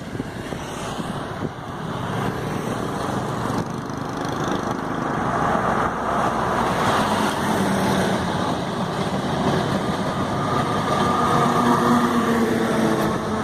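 Train passing alongside the road, its rumble building steadily with a steady engine drone growing stronger in the second half.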